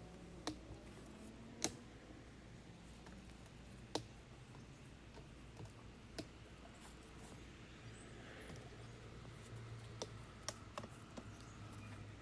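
Paintbrush working silicone roof coating onto a rubber flat roof, faint brushing with scattered sharp clicks and taps, a little louder in the last few seconds.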